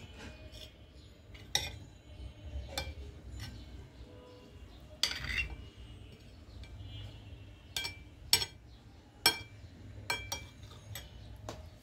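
Metal spoon clinking against a ceramic plate: about ten separate sharp clinks spread through, with one longer clink about five seconds in.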